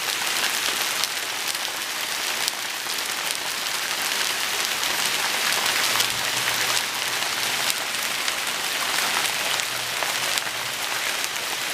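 Heavy hail falling fast and pelting surfaces: a dense, steady patter of countless small ticks.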